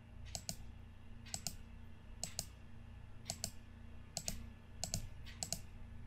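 Computer mouse button clicked about seven times, roughly once a second, each click a quick double tick of press and release, over a faint steady low hum.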